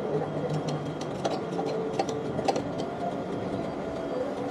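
Steady hum of machine-shop machinery with several sharp metal clinks and taps from a motorcycle mag rim being handled on a wheel-straightening press.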